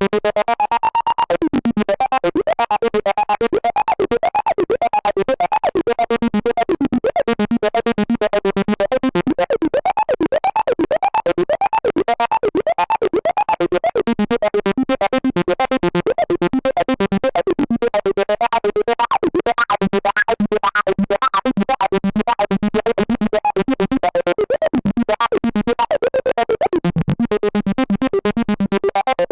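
Behringer System 100 analog modular synthesizer playing a fast sequenced acid bass line: a rapid, even stream of notes whose pitch and brightness keep shifting.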